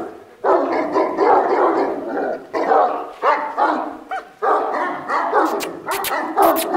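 Kenneled Pakistani Bully Kutta dogs barking almost without pause, the barks running together, with a few sharp clicks near the end.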